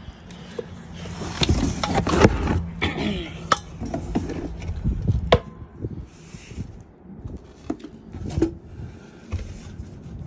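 Knocks, clatter and rubbing as a portable air compressor is handled: its plastic shroud and steel tank bump against the cardboard box and the floor. There is a burst of rubbing and knocks in the first few seconds, then scattered single knocks.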